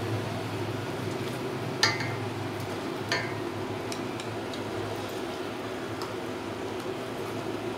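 Chopsticks knocking twice against a stainless steel pot, sharp clinks about two and three seconds in, while banana leaves are blanched in boiling water, over a steady background hum.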